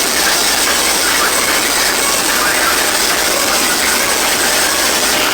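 Loud DJ sound systems heard as a steady, dense, distorted noise with little bass and no clear beat, as when a phone microphone is overloaded by the speaker stacks.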